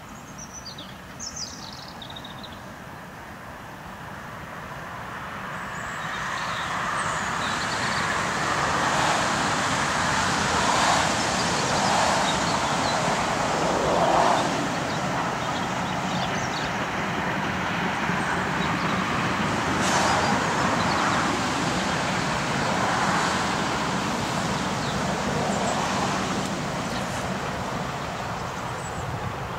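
SR Lord Nelson class steam locomotive No. 850 working a train of coaches: its exhaust and running noise swell a few seconds in, stay strong through the middle, and ease off near the end as it draws away.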